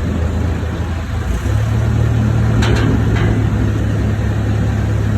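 A motor running with a steady low hum that grows louder about a second and a half in, with a few short clicks near the middle.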